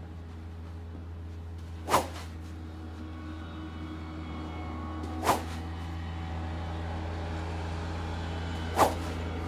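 Three fast whooshes of a club swung at full speed through the air with no ball, about three and a half seconds apart, over a steady low hum.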